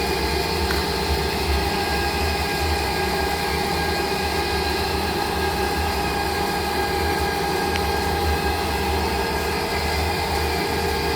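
CNC lathe running a high-feed turning cut toward the tailstock with a round RCMT 1204 insert: a steady machining noise with several held tones over a low hum.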